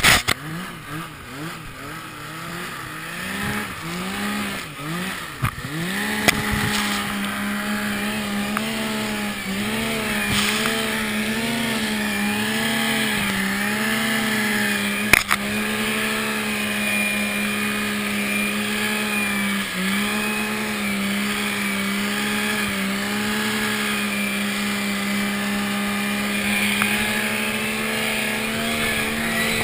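Yamaha Nytro snowmobile's four-stroke triple engine revved up and down several times in the first few seconds, then held at high revs with its pitch wavering as the sled drives through deep powder. A few sharp knocks near the start and one about halfway through.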